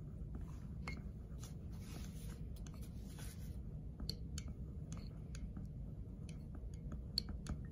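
A teaspoon stirring water in a cup, clicking lightly and irregularly against the cup's sides.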